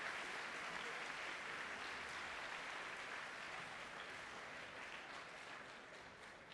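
Audience applauding, the clapping slowly dying away toward the end.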